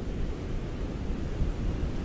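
Ocean surf: a steady, deep wash of waves, even throughout, with no single breaking wave standing out.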